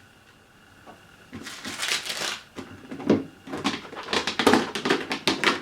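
Plastic housing of a box fan being handled and fitted back together: a scraping rustle, then a quick run of sharp clicks and knocks.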